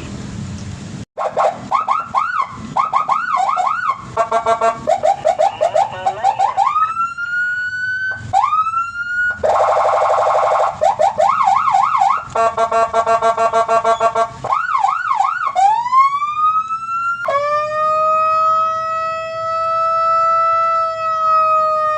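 Senken electronic police siren run through its tones in turn: quick yelps and warbles, pulsing patterns and rising sweeps, then, about three-quarters of the way through, one steady high tone that holds and sinks slowly.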